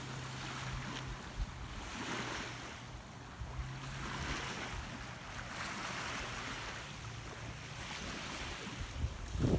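Wind over an open lake with small waves lapping at the sandy shore, swelling and fading every couple of seconds. A faint steady low hum lies underneath.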